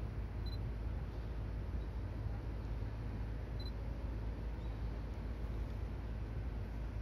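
Steady low rumbling background noise of an outdoor railway station with no train passing. Two faint, short, high pips about half a second and three and a half seconds in.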